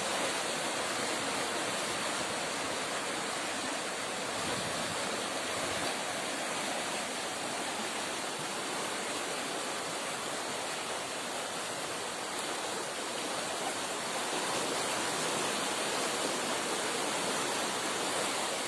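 Floodwater rushing steadily, an even hiss of flowing water with no breaks.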